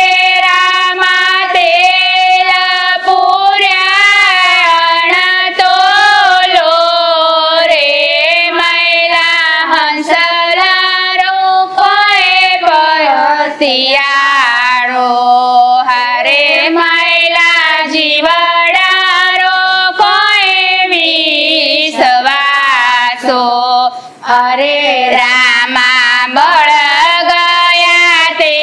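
Three women singing a Gujarati devotional kirtan together, one continuous melody with only short breaks for breath.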